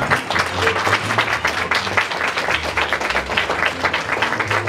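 Audience applauding, many hands clapping together in a steady patter.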